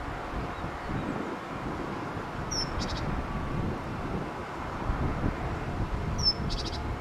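A small bird calls twice, each call a short high chirp falling into a fast trill, over a low rumble.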